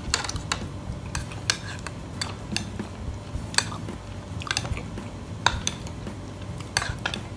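Metal spoon clinking against a small ceramic bowl as food is scooped from it: a string of sharp, irregular clinks.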